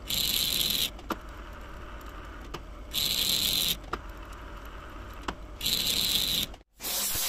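Lathe threading a brass nut: short bursts of high cutting hiss about every three seconds as the tool makes each pass, with a sharp tick between passes over the steady low hum of the machine.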